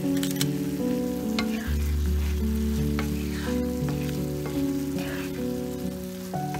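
Halved cherry tomatoes sizzling in hot oil in a nonstick frying pan, stirred with a wooden spatula that scrapes against the pan a few times.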